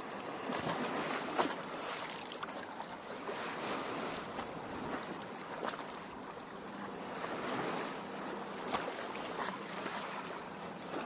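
Small lake waves lapping at the shore: a steady wash of water broken by frequent little splashes.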